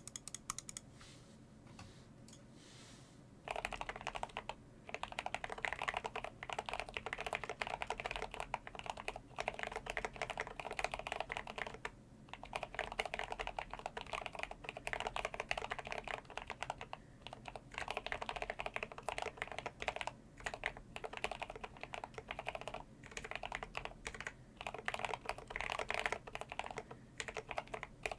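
Fast typing on a GMMK Pro mechanical keyboard with lubed Gateron Black Ink V2 linear switches, tape-modded and with doubled-up case foam: a dense run of keystroke clicks that starts a few seconds in, with a few short pauses.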